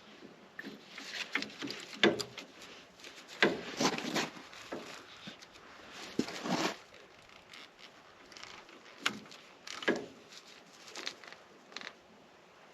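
Irregular clinks and knocks of hand tools: a socket, extension and ratchet being handled and fitted, scattered sharp taps with no steady rhythm.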